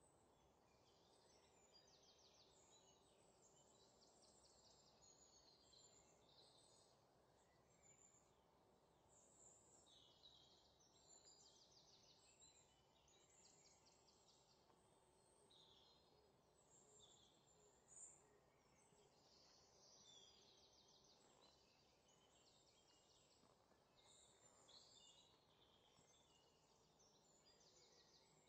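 Near silence: a faint ambience of high bird chirps and short trills.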